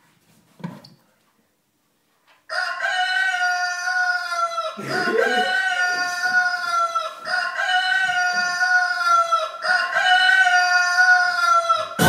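A rooster crowing, played back as a recording on a loop from a phone: after a brief hush, four identical crows follow back to back, each about two seconds long.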